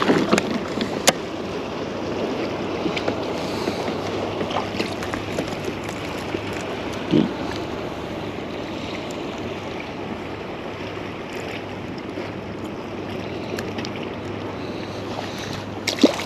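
Water sloshing and lapping around a fishing kayak, with wind noise on the microphone and a few sharp clicks, one about a second in.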